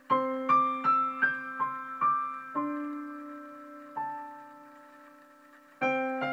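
Solo piano music: a slow melody of single struck notes over a sustained low note, a pause with notes ringing out, then a fresh chord near the end.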